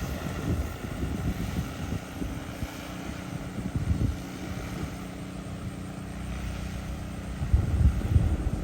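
DJI Agras T30 crop-spraying drone in flight, its propellers giving a steady hum, with a louder low rumble near the end.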